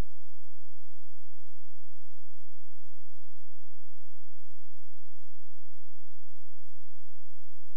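Steady low-pitched sine test tone, the kind carried on an analog TV signal with colour bars, holding one unchanging pitch throughout, with faint irregular ticks just above it.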